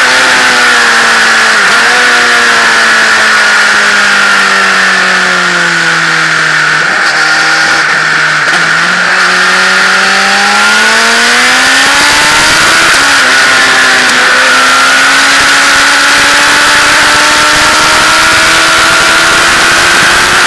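Motorcycle engine heard from on board, its note falling for the first eight seconds or so as the bike eases off, with a few brief dips. It then climbs again under acceleration, breaks briefly about thirteen seconds in at a gear change, and rises slowly after that. A steady rush of wind noise on the microphone runs underneath.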